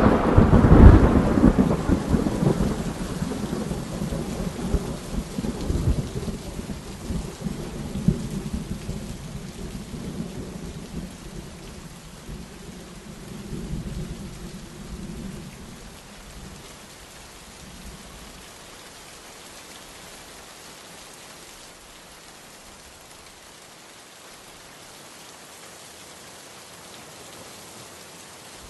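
Thunderstorm: a loud roll of thunder that dies away over about fifteen seconds, leaving the steady hiss of rain.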